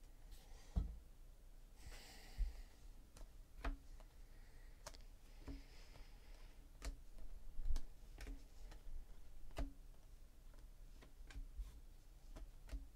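Stack of Donruss Optic baseball cards being flipped through by hand: light, irregular clicks and taps as each card is slid off the stack and set down, with a couple of soft sliding swishes.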